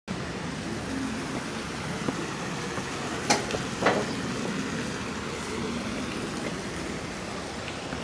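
Steady outdoor background rush, with two sharp knocks about half a second apart a little past three seconds in.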